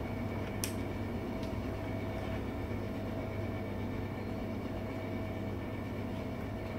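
Steady machine hum and fan noise of a takeaway kitchen's equipment, with a faint click about half a second in.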